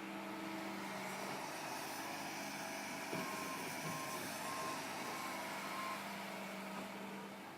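Vehicle engine running steadily; from about three seconds in, its reversing alarm gives a series of short, evenly spaced beeps, about two a second.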